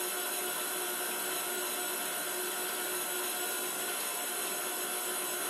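KitchenAid Artisan stand mixer running with its wire whisk attachment, a steady motor whine as it beats oil, sugar and egg yolks in the bowl.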